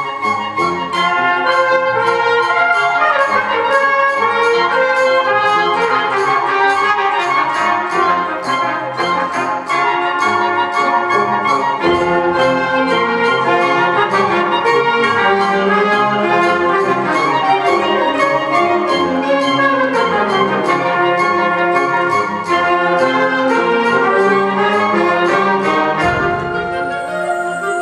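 Wind ensemble playing a fast concert band piece at full volume, brass to the fore over a steady percussive beat.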